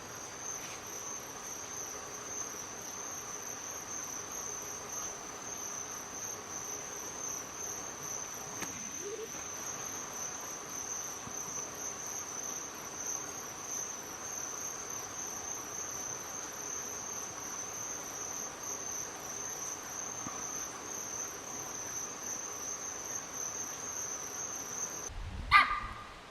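Steady chorus of crickets, a continuous high, finely pulsing trill. Near the end the trill stops and a single short, loud sound breaks in.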